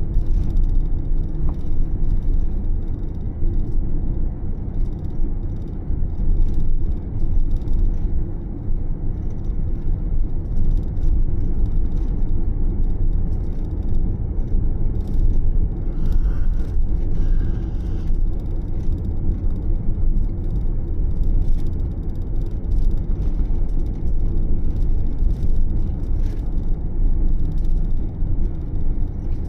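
Camper van driving at a steady pace: continuous low engine and road rumble with tyre noise.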